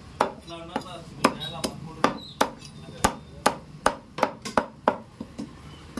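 Butcher's cleaver chopping mutton in a quick run of sharp chops, two or three a second and unevenly spaced.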